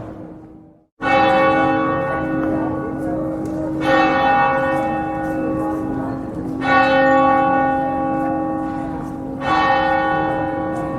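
A church bell tolling slowly: one bell struck four times, about every three seconds, each stroke ringing on into the next over its steady low hum. The strokes begin just after a brief dropout in the sound about a second in.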